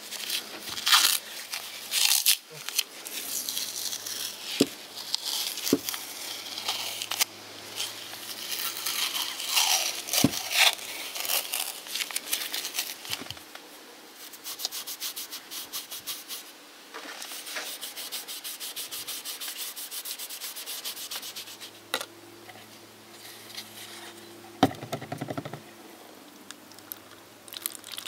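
A cloth rag rubbing and wiping over a wooden cleaver handle, with crinkling and scuffing as the rag is folded and handled. A stretch of quick, even back-and-forth strokes comes in the middle.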